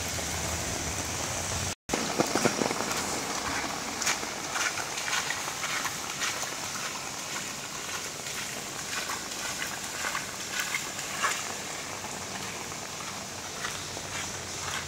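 Heavy rain falling steadily, with a low engine hum underneath for the first couple of seconds. After a sudden break, the rain goes on with many scattered, irregular sharp taps.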